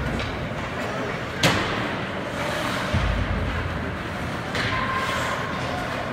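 Ice hockey play in an indoor rink: a single sharp crack about one and a half seconds in, then a low thud about three seconds in, over the steady noise of the arena.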